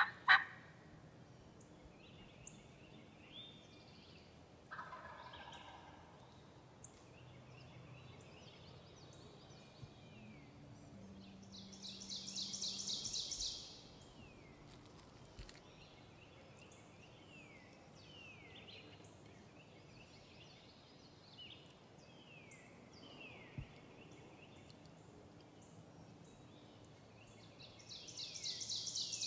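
Wild turkey gobbler gobbling twice, a rapid rattling gobble about twelve seconds in and another near the end, with small birds chirping between.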